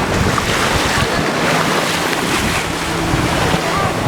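Sea waves washing on the shore, with wind buffeting the microphone.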